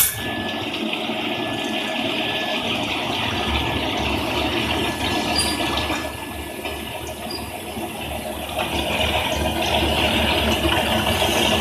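Quench water spraying onto a small steel shaft as it is induction hardened in the copper coil, a steady rushing hiss that starts suddenly.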